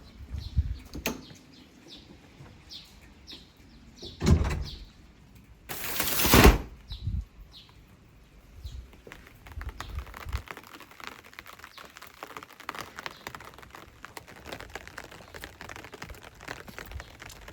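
Birds chirp in short falling calls, then a thud about four seconds in and a louder sliding rush about six seconds in. From about nine seconds on there is a steady fine patter of rain.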